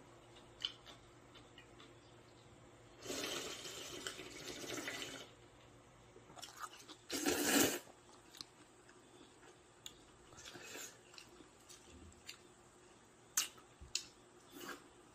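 Slurping cold soy-milk noodle soup (kongguksu): a long slurp about three seconds in and a shorter, louder one a little past seven seconds, with a few sharp utensil clicks against the bowl near the end.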